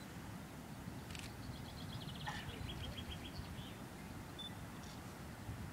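Steady low rumble of wind on the microphone, with a small bird singing a quick trill of high notes about a second in, then a couple of single chirps.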